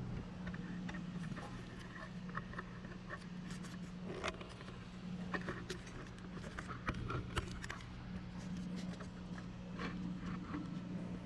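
Light scattered clicks and scrapes of hands handling a Honda ECU circuit board and small parts, over a steady low hum.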